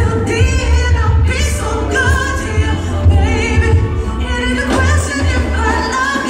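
Live R&B concert: a woman singing lead into a microphone, her voice wavering and gliding, over a band backing with a heavy, steady bass.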